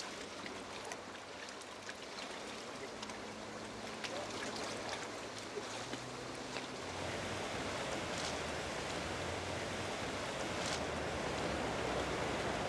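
River water flowing with a steady rushing sound that grows louder about seven seconds in, with a few faint clicks.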